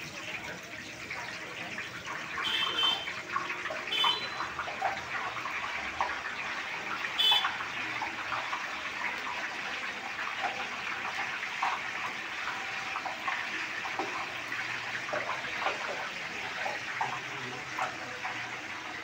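Hot oil sizzling and crackling steadily in a large steel wok as a batch of noodles deep-fries. Three short sharp clinks stand out within the first eight seconds.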